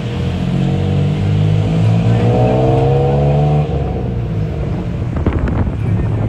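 Tuk-tuk engine, heard from on board, revving up as the three-wheeler pulls away. Its pitch climbs for about three seconds, then drops back suddenly and runs on at lower revs.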